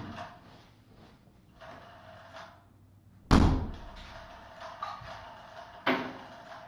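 Two sharp thuds in a room: a loud one about three seconds in and a lighter one near the end, over a faint steady hum.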